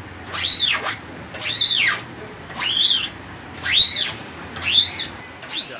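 Small emulsion coater squeaking against a screen-printing mesh as it is stroked back and forth to spread photo emulsion: about six squeals, one a second, each rising and then falling in pitch.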